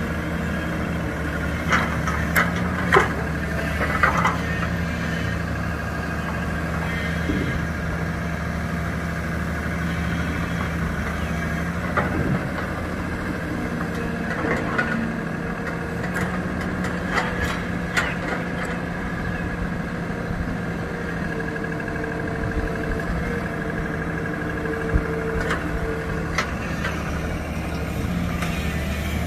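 Excavator's diesel engine running steadily as it digs soil, with scattered sharp knocks and clanks from the working bucket and arm.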